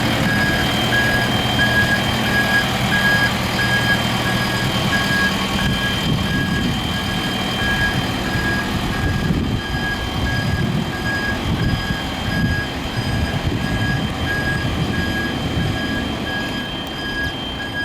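JCB 3CX backhoe loader's reversing alarm beeping steadily, about two beeps a second, over the machine's diesel engine running. The engine note is steady for the first few seconds, then uneven.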